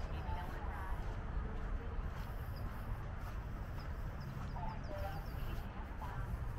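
Outdoor crowd ambience: steady background noise with faint, distant voices of people, and a quick run of about half a dozen short, high bird chirps about two-thirds of the way through.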